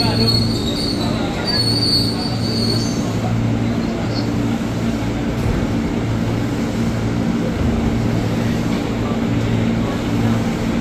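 Former JR 205 series electric commuter train (KRL) braking to a stop at a platform, with a high brake squeal during the first three seconds. A steady low hum from the train runs underneath.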